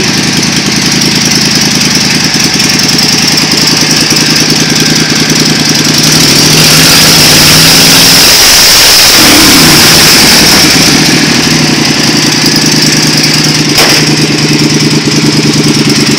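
Engine of a modified 2001 Craftsman LT1000 racing lawn mower running loud and rough, with a steady high whine over it. For several seconds in the middle it gets louder and its pitch dips and climbs back, then it settles to a steady run again.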